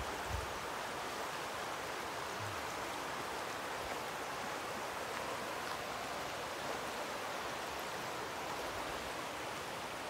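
River water flowing with a steady, even rushing hiss.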